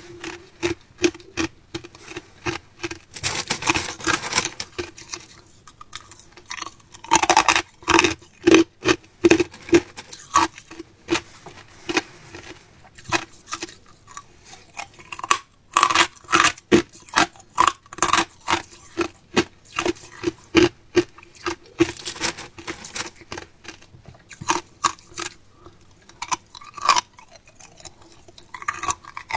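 A person biting and chewing hard ice, making a long run of sharp, irregular crunches, several a second.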